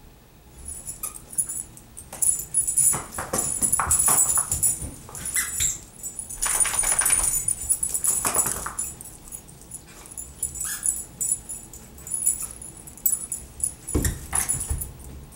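Greyhounds at play with a plush toy: irregular jingling and rattling of metal collar tags as a dog shakes the toy, with paw scuffs and thumps on the carpet. A heavier thump comes near the end.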